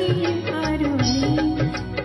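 Indian devotional bhajan music: a held melody line that sags in pitch about midway and climbs back, over a steady hand-drum rhythm with short low gliding strokes.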